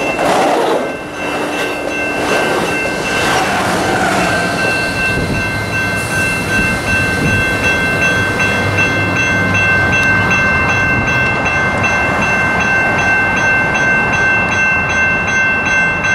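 Amtrak Pacific Surfliner train passing close by, its wheels clattering over the rails, then a railroad crossing warning bell ringing steadily about twice a second over the low rumble of an approaching diesel locomotive.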